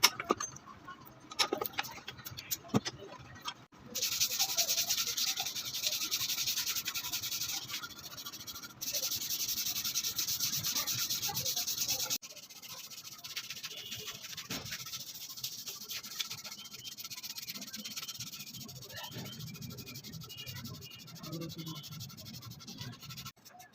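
Hand abrasive work, sanding or scraping: a few knocks, then a fast steady scraping in edited stretches, then softer rubbing near the end.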